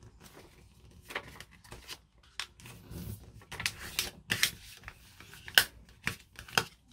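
Sheet of paper being folded in half and creased: a run of short rustles and sharp swipes as the fold is pressed flat with a card, the sharpest swipe near the end.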